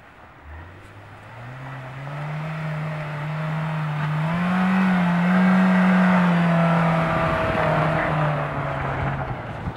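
Honda Fit 4WD's engine pulling hard through deep snow: its note climbs over the first couple of seconds, then holds high and grows louder as the car comes closer, easing off near the end, with a rushing hiss beneath it.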